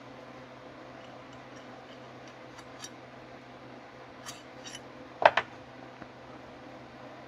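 Small metal carburetor parts and a brass rod being handled on a wooden workbench: a few light clicks and clinks, then a sharp double clack about five seconds in, over a steady low hum.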